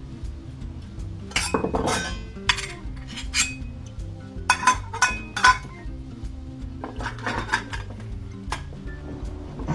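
Sheet-steel shield plate from a CRT monitor being handled and set down on a wooden workbench: a series of irregular metallic clanks and clinks, loudest about five seconds in, with music playing underneath.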